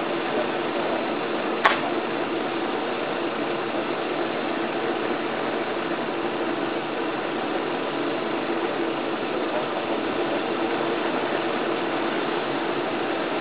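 A small motor running steadily, with one sharp click about a second and a half in.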